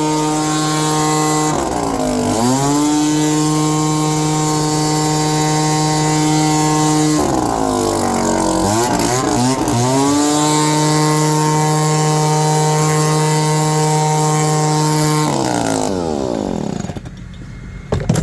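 Leaf blower engine running at high throttle, steady and loud, with the throttle let off twice so the pitch sags and climbs back. Near the end it is throttled down and the engine winds down.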